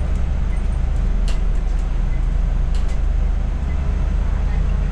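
Scania OmniCity city bus driving, its engine and drivetrain a steady low drone heard from the driver's cab. A couple of brief light clicks or rattles about a second in and near the middle.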